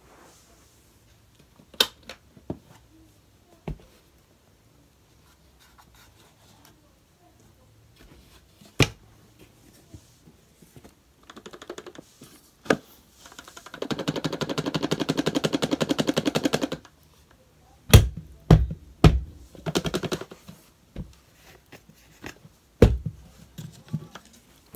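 Debris being dropped and poured onto carpet: scattered taps and clicks, then about three seconds of rapid, dense rattling as a container is emptied onto the pile, followed by several dull thumps.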